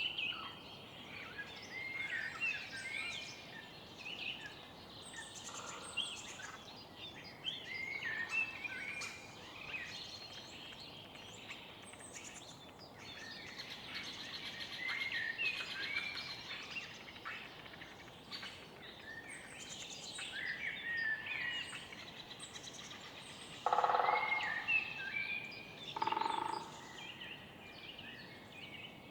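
Morning bird chorus in a city park: many songbirds chirping and singing over steady background noise, with two louder, lower-pitched calls near the end.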